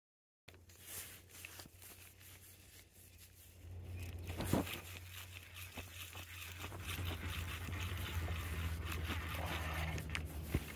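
Clothing and hands rustling and knocking lightly against the microphone while a spinning rod and reel are worked against a hooked fish, with a low steady hum that starts about a third of the way in and grows slightly.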